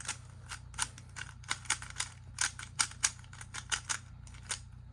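Rubik's cube being turned by hand: quick, irregular plastic clicks as the layers snap round, several a second, over a steady low hum.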